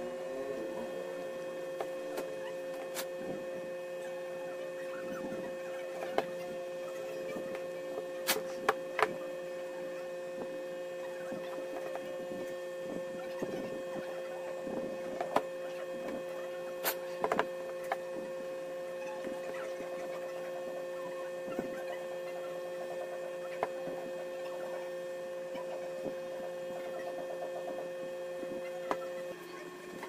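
Scattered light clicks and taps as fingers press and handle a disassembled smartphone's mainboard and plastic frame, over a steady electrical hum with a high-pitched whine that stops shortly before the end.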